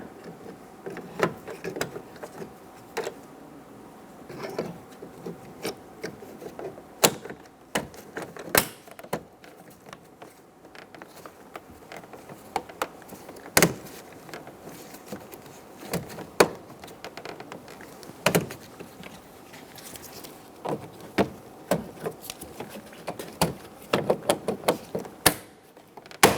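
Hands working a plastic interior door handle bezel trim on a truck door panel: irregular plastic clicks, taps and knocks as the trim piece and its clips are handled and fitted.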